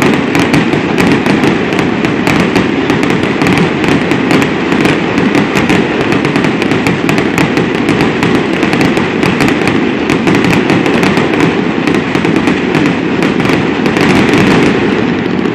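Fireworks finale: a loud, dense, continuous barrage of rapid crackles and pops from shells and fountains fired together, stopping near the end.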